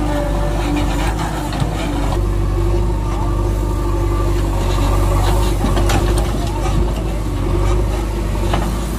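A steady engine-like running sound, a low continuous hum with a held mid-pitched drone, with a few short clicks partway through.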